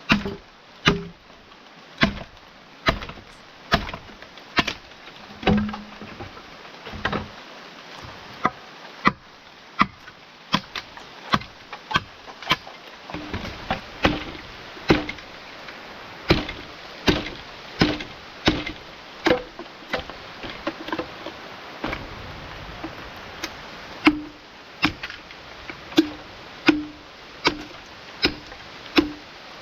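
Wood being chopped with a blade: a long run of steady, even strokes, a little over one a second.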